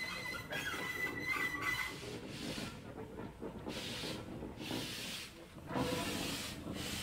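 1926 La Société de la Meuse four-coupled industrial steam tank locomotive moving slowly, its steam hissing in evenly spaced puffs about every one and a half to two seconds. A thin, high squeal runs through the first two seconds.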